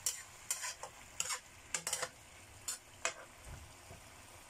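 Metal spatula stirring and scraping through chicken and gourd in a nonstick frying pan, a series of short, irregular scrapes against the pan. The sauce in the pan has just thickened with cornstarch.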